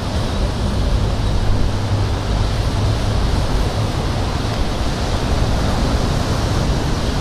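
Steady wind noise rumbling on the microphone over the wash of ocean surf. The distant jet is not audible through it.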